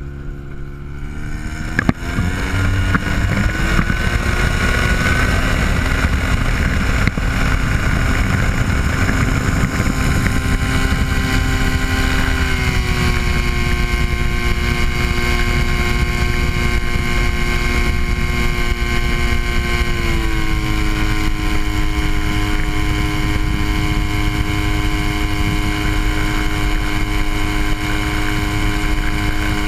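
Ultralight aircraft's piston engine and propeller, heard from on board: the engine speeds up over the first few seconds and grows louder, then runs steadily, stepping up in pitch twice more, about halfway through and two-thirds of the way through.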